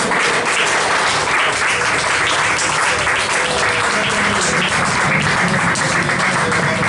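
Audience applauding, a dense steady clatter of many hands, with a low sustained instrumental tone carrying on underneath.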